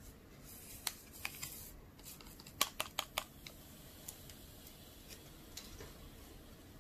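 Foil sachet of cola drink powder crinkling as it is squeezed and emptied into a small plastic cup of water, then a quick run of sharp clicks as it is tapped out, followed by a few faint ticks while the powder foams in the water.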